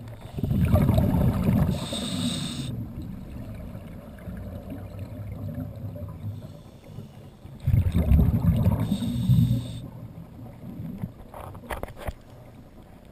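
Scuba diver's breathing heard underwater through the regulator: two long bubbling rumbles of exhaled air, the first about half a second in and the second near eight seconds, each with a brief hiss near its end, and a quieter low murmur in between.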